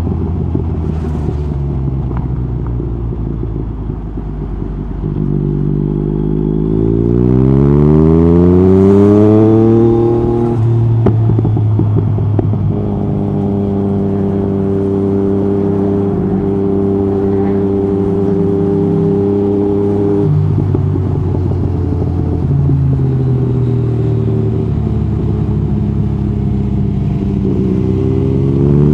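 Yamaha MT-09 SP's inline three-cylinder engine through an Akrapovic Carbon Racing-Line exhaust with the dB killer out, heard from the rider. It pulls with rising pitch about five seconds in, changes gear around ten seconds, holds steady revs for several seconds, then drops in pitch as it slows and climbs again near the end.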